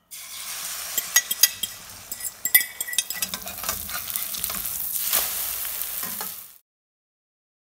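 Egg, potato and onion omelette sizzling in a metal wok, with a metal spatula clicking and scraping against the pan, the clicks thickest in the first three seconds. The sound cuts off suddenly about six and a half seconds in.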